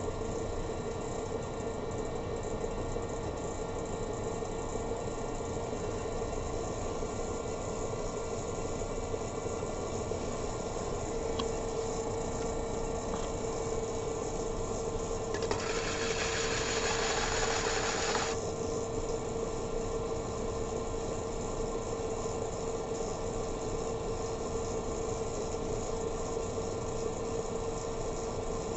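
Electric pottery wheel motor running at a steady speed with a constant hum. A little past the middle, a hiss lasts about three seconds.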